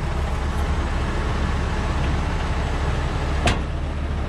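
Heavy tow truck's diesel engine running steadily while its underlift is being positioned, with one sharp metallic knock about three and a half seconds in.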